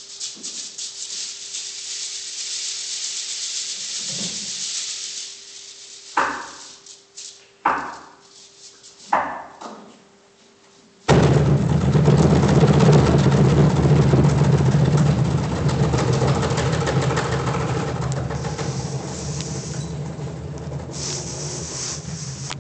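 Afro-Peruvian cajón ensemble playing: a high hissing rattle for the first few seconds, then three single strokes about a second and a half apart and a short pause. About halfway through, all the cajones come in together, loud and dense.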